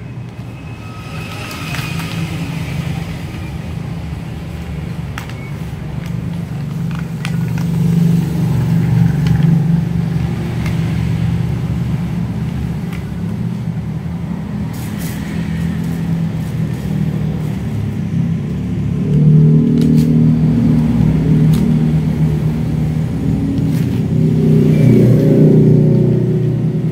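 Paper food wrapping crinkling and rustling as it is unfolded by hand, over a loud, steady low rumble that swells several times.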